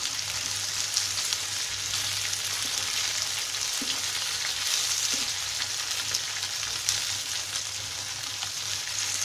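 Boiled, flattened taro root (arbi) pieces shallow-frying in hot oil in a nonstick wok, a steady sizzle, with light taps and scrapes of a wooden spatula as the pieces are turned over.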